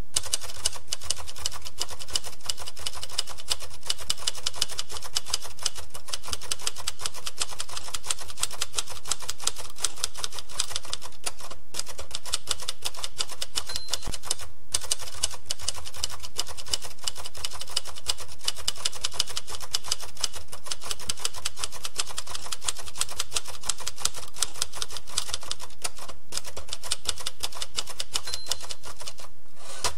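Manual typewriter keys clacking in a fast, continuous run, with brief pauses now and then.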